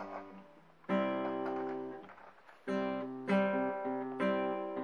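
Background music of an acoustic guitar strumming chords, each chord left to ring out and fade before the next.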